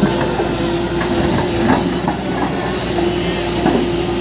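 Tata Hitachi crawler excavator at work: its diesel engine runs steadily under load with a constant whine, and the bucket knocks now and then as it digs through earth and rock.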